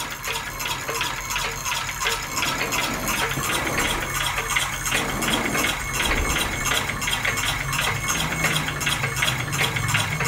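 Model solenoid beam engine running quietly on 6 volts: an even, rhythmic clicking and light metallic rattle from its mechanism, a few beats a second. A low hum grows louder near the end.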